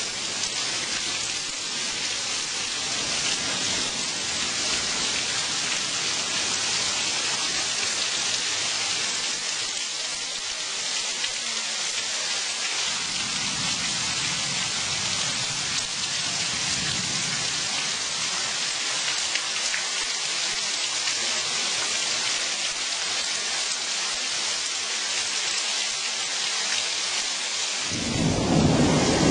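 Heavy rain falling steadily in a thunderstorm, an even hiss, with low rumbles of thunder twice and a louder, deeper rumble coming in near the end.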